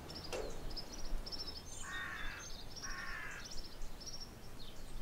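Small birds chirping in short repeated high trills, with two harsh, raspy caws about two and three seconds in.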